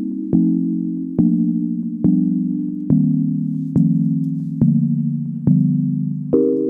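A software keyboard instrument in Logic Pro X playing back a chord progression, one chord per beat at 70 bpm, each struck sharply and dying away. Eight chords sound, stepping gradually lower by small moves, voice leading from chord to chord, until a higher chord comes in near the end.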